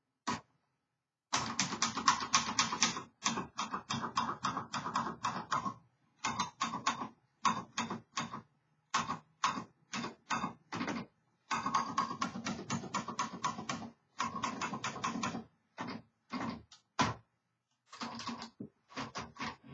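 1962 Royal Royalite manual portable typewriter being typed on: rapid runs of sharp key strikes lasting a few seconds each, broken by short pauses, then slower scattered strokes near the end.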